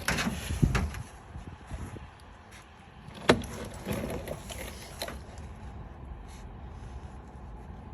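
A few clunks and clicks as an oil drain pan and tools are handled under the car, with one sharp click about three seconds in, then a faint steady background.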